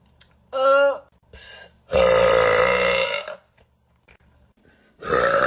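A person burping loudly: a short burp that drops in pitch, then a long drawn-out belch of about a second and a half, and another burp starting near the end.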